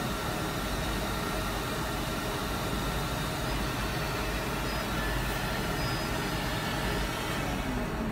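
LPKF ProtoMat S63 PCB milling machine running behind its closed hood: a steady hiss, with faint short whines near the middle as the head travels over the board.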